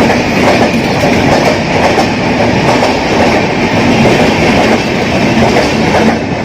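Indian Railways passenger train running on the track: a loud, steady rumble of wheels on rails.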